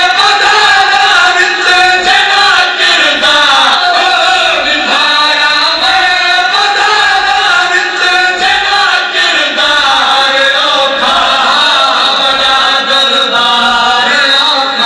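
Men's voices chanting a noha, a Shia mourning lament, with a crowd of men reciting along. The chanting is loud and unbroken.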